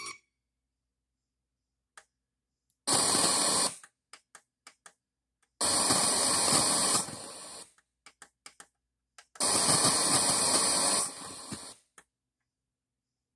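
Radio static from a Sony STR-DH130 receiver's tuner while it is tuned between stations: three bursts of hiss, each one to two seconds long, with short clicks between them and silence in the gaps.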